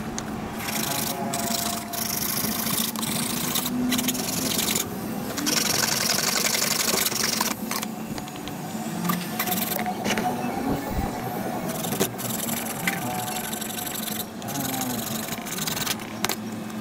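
Power saw running with a steady motor hum while it cuts a PVC sheet, the rasping cutting noise breaking off briefly several times as the sheet is fed and repositioned.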